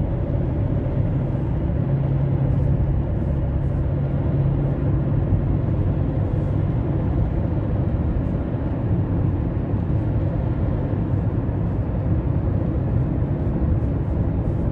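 Opel Astra J 1.3 CDTI diesel car driving along: a steady low engine and road rumble.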